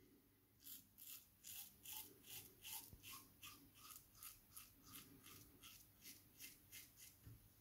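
Open-comb safety razor with an Astra Platinum blade cutting stubble on the upper lip in short, quick strokes: faint, even scrapes, about three a second.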